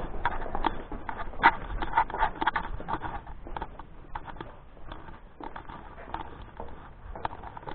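Footsteps on concrete stairs: irregular tapping and scuffing steps, denser and louder in the first few seconds, then sparser and fainter.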